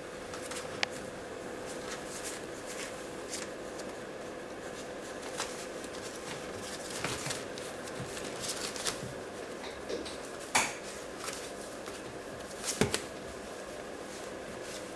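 Schipperke puppies scrabbling and tussling on newspaper, their paws and claws rustling and scratching the paper in scattered little clicks. A couple of louder knocks come about ten and a half and thirteen seconds in, over a faint steady hum.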